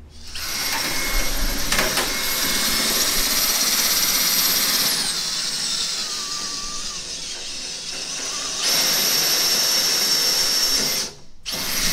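Makita 18V cordless drill boring a 1/4-inch hole through the hard 4130 steel plates of the engine mount and firewall under steady pressure. The drill runs steadily, slows for a few seconds in the middle, then picks back up to speed. It stops about eleven seconds in and gives one short burst right after.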